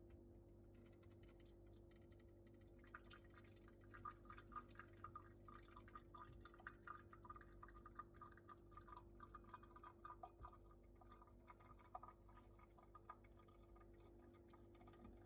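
Faint, irregular spitting and dripping of espresso from a ROK manual lever espresso maker's spout into a glass as the lever is pressed down, starting about three seconds in and thinning out near the end, over a steady faint hum.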